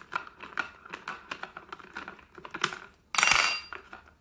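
Quick irregular small clicks and ticks from an Allen key turning the bolt on a pole chainsaw's plastic bar cover. About three seconds in comes a short, loud metallic clatter with a high ringing.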